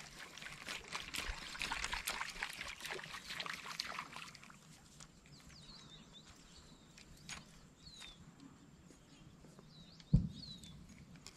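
Spinning rod and reel working a popper lure across the water: a crackling rattle for about the first four seconds, then quieter, with a few short bird chirps and one sharp thump near the end.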